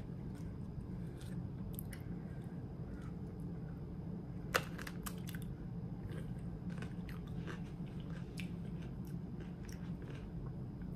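Close-up chewing and crunching of food in the mouth: many small irregular crunches, with one sharper bite about four and a half seconds in, over a steady low hum.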